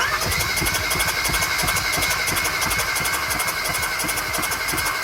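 Hyundai Veloster turbo's four-cylinder engine cranking over on its starter with a steady high whine, starting right away and stopping at the end, for a compression test on cylinder four. That cylinder shows barely any compression; the owner suspects a valve, and the cause turns out to be a damaged piston.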